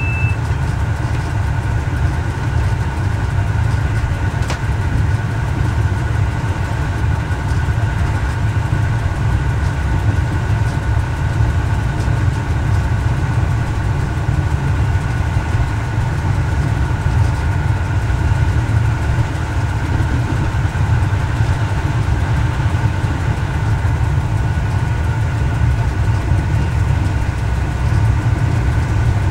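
Y1 railcar's Volvo diesel engines running steadily under way, with wheel-on-rail noise, heard inside the driver's cab: a steady low rumble with a faint higher whine. A short high beep sounds at the very start.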